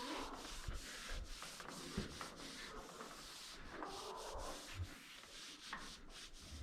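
Scrubbing the outside of a dairy barn's milk pipeline with hot soapy water, in repeated, irregular rubbing strokes.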